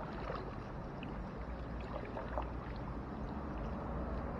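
Water lapping softly against a kayak hull with a steady low rumble, and a few faint small ticks.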